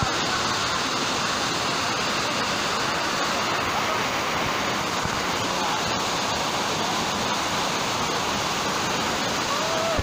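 A waterfall close by, its falling water making a steady, even rush with no let-up.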